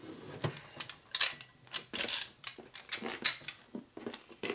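Steel hand tools, a socket wrench and torque wrench, clicking and clanking irregularly against the head bolts of a Harley shovelhead engine; one click about a quarter of the way in rings briefly.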